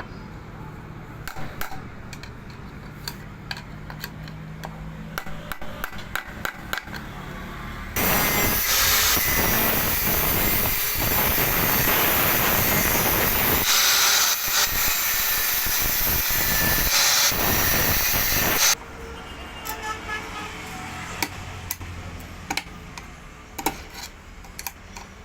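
Light metal tapping and clinking on the tractor-seat parts, then a loud, steady hissing workshop noise that starts suddenly about eight seconds in and stops abruptly about ten seconds later, followed by more tapping.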